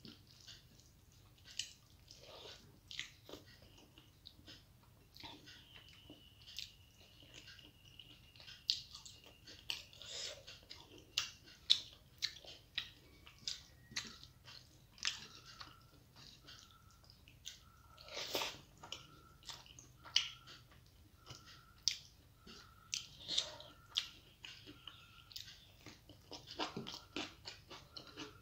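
Close-miked eating by hand: chewing and mouth smacks on rice and dal, with the wet squish of fingers mixing rice on the plate, heard as many short, irregular smacks.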